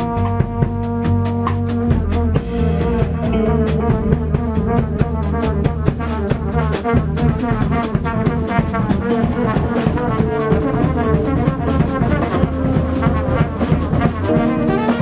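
Live jazz: a trumpet plays a solo line over drum kit and bass in a 9/8 groove. It holds one long note at the start, then moves into shorter phrases, with cymbals ticking steadily underneath.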